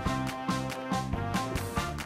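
Background music with a steady beat, about two beats a second.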